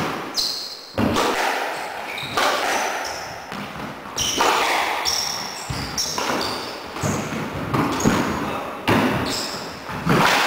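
Squash rally: the ball cracks off rackets and the court walls about once a second, each hit echoing in the enclosed court, with short shoe squeaks on the wooden floor in between.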